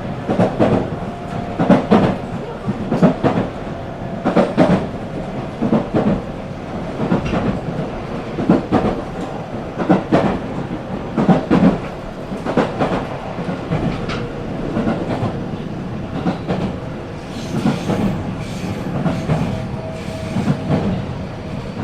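A JR 313 series electric train running, heard inside the car: the wheels clack over rail joints again and again over a steady rolling rumble.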